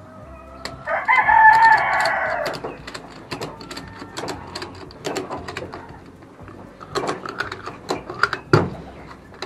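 A rooster crows once, a single long call starting about a second in, the loudest sound here. After it come irregular sharp clicks and rattles from the ratchet straps and wire cage being handled.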